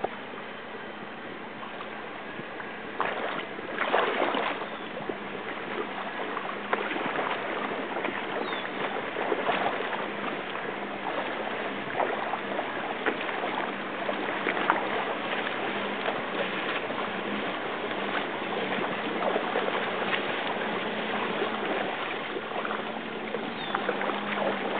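Water sloshing and splashing as an SUV ploughs through a flooded channel, pushing a wake. There are louder splashes about three to four seconds in, and a steady low hum underneath throughout.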